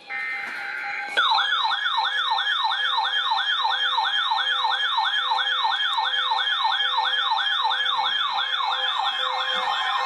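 Electronic warbling alert siren that starts about a second in and sweeps up and down in pitch about three times a second, over a steady tone and a pulsing lower beep.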